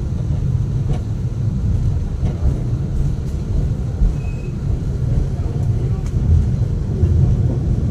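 Alishan Forest Railway train running, heard from inside a passenger car: a steady low rumble as it pulls out of a station. A short high tone sounds about four seconds in.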